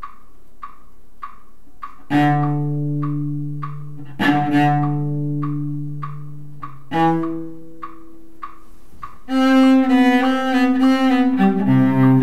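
Solo cello being bowed: three long notes about two seconds apart, each swelling and then fading, then from about nine seconds in a quicker run of bowed notes. A steady tick, a little under two a second, keeps time under the first notes.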